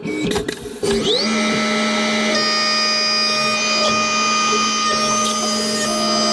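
A Tormach 1100MX CNC mill's spindle spins up about a second in with a rising whine after a few short clatters. It then runs at a steady speed with a high whine, and flood coolant sprays over the aluminium part.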